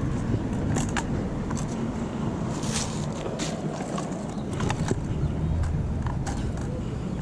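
Pushed cart rattling over pavement: irregular clicks and knocks over a steady low rumble.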